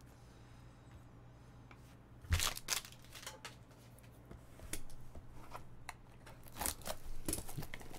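Trading cards and their wrappers being handled. It is quiet for about two seconds, then a run of sharp crinkles and taps follows.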